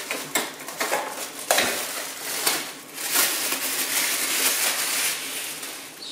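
Sharp clicks and knocks of parts being handled on a Sage Barista Touch espresso machine, then a few seconds of crinkling, rustling plastic packaging being pulled off and crumpled.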